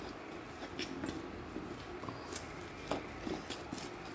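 A few light, sharp clicks and taps of kitchen utensils over faint room noise.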